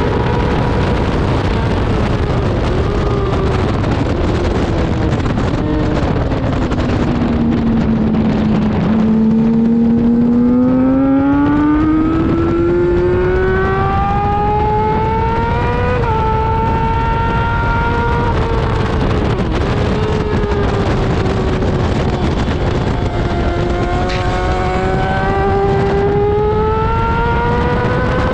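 Onboard sound of a middleweight sport bike's engine at track speed, heard over heavy wind rush. The engine note falls as the bike slows about eight seconds in, climbs steadily under acceleration, dips briefly, then rises again near the end.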